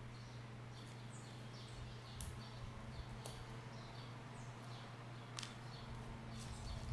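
Quiet room tone with a steady low hum, faint high bird chirps repeating in the background, and a few soft clicks from handling a small tube of glitter dimensional paint.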